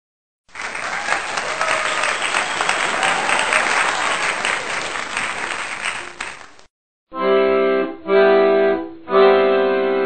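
Applause for about six seconds, then three held keyboard chords with an accordion-like tone, each about a second long.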